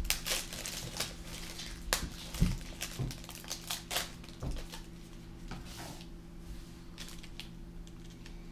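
Chocolate bar wrapper crinkling and crackling as it is handled and torn open, with irregular sharp crackles that thin out about halfway through and a couple of soft thumps on the table.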